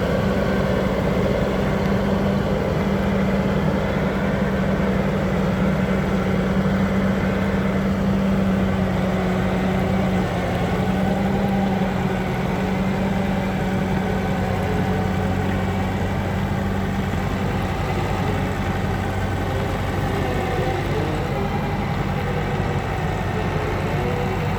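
Road roller's engine running steadily, with a continuous low hum whose strongest tone shifts lower about two-thirds of the way through.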